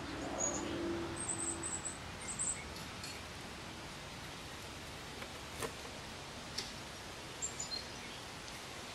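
Open-air outdoor ambience with a few short, very high bird chirps in quick runs in the first couple of seconds and again near the end. A few sharp clicks in the middle come from the blue jay's bill pecking at seeds on a wooden stump.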